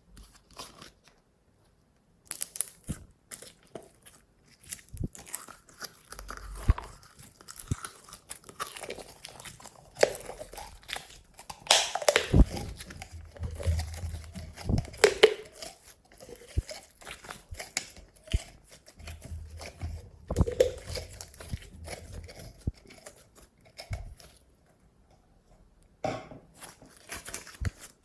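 Glossy slime being kneaded, stretched and pressed by hand, giving irregular sticky crackles, pops and squelches with short pauses.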